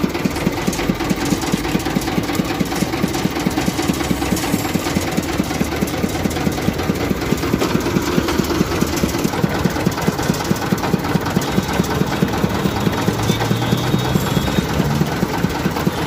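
Engine-driven sugarcane juice crusher running steadily, its small engine beating out a rapid, even knocking rhythm as the iron rollers and gears turn.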